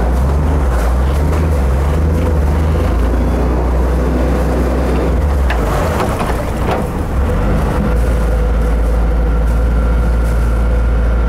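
Sirius 35 DS sailing yacht's inboard engine running under load while the boat is manoeuvred in reverse and forward to turn on the spot with prop wash. It is a steady low drone that changes in pitch and strength about six to eight seconds in, with a couple of short clicks around the middle.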